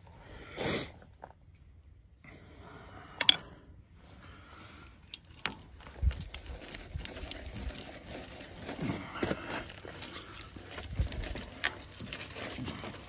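Steel wire rope strands from a worn-out winch cable, cut off at the drum, being handled and pulled, giving faint scrapes, rustles and scattered small clicks against the steel drum, with one sharper click about three seconds in.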